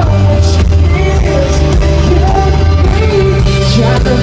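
Live pop-rock band playing loudly, with a steady bass line, drum hits and a sung melody gliding over the top.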